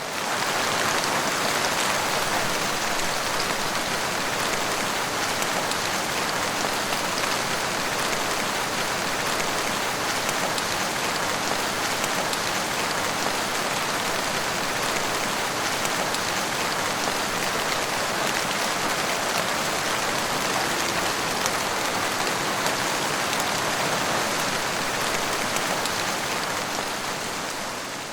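Heavy rain falling steadily, a dense, even hiss of drops striking a surface with fine patters in it, fading out near the end.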